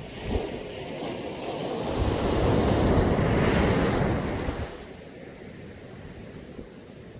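Caribbean sea waves breaking on a beach: a wave swells and breaks about two seconds in, then the surf drops to a quieter wash after about four and a half seconds.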